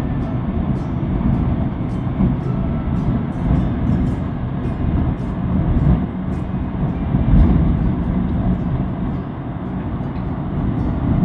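Storm-force wind gusting and buffeting the microphone: a loud, rumbling, continuous roar that swells and eases, with faint crackles.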